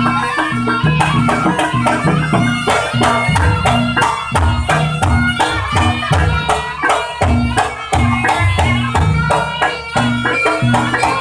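Jaranan accompaniment music: a traditional Javanese percussion ensemble of drums and gongs keeps a steady, fast beat, with a melody line carried over it.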